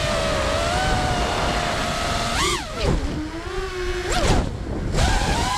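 Whine of an FPV quadcopter's DYS 2205 2300KV brushless motors spinning DAL 5040 three-blade props, with wind rush, heard from the onboard camera. The pitch holds steady at first, then swoops sharply up and down twice in the second half as the throttle is punched and cut.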